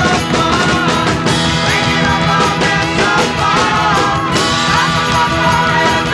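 Rock music with a wavering lead melody over a steady band.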